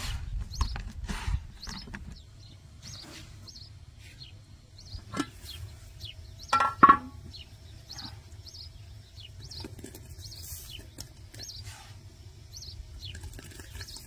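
Small birds chirping over and over in short high notes, with dry rustling of floured dough squares being handled during the first two seconds. A short, loud pitched call stands out about six and a half seconds in.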